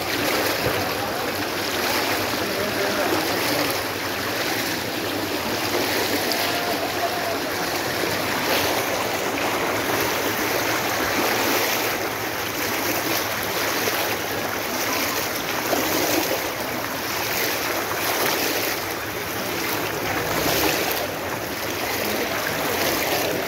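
Brown floodwater rushing down a flooded tarmac street, a steady churning noise of fast-moving water.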